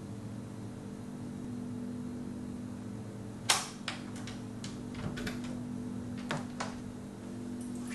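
Sharp metallic clicks and rattles from the front door's lock and handle being worked to open it: one loud click about three and a half seconds in, then a string of lighter clicks. A steady low hum runs underneath.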